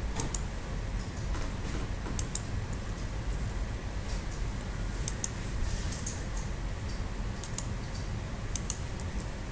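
Scattered clicks of a computer mouse and keyboard, often in quick pairs, a second or so apart, over a steady low hum.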